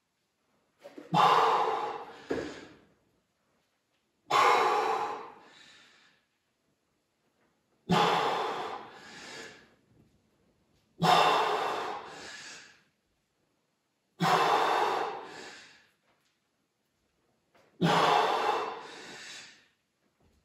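A person's heavy, forceful breathing during a weighted leg exercise. There are six sharp, loud exhalations, about one every three seconds and each trailing into a softer breath, one per repetition, blown out on the effort of rising.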